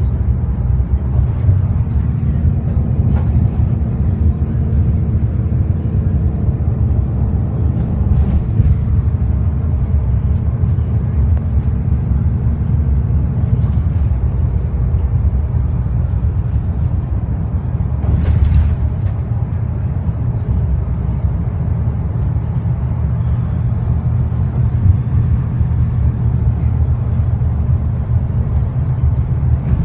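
Interior of a Bustech ADi bus under way: its Cummins ISL six-cylinder diesel engine runs steadily as a low drone, mixed with road and tyre noise. There are a couple of brief bumps or rattles, about a third of the way in and again past the middle.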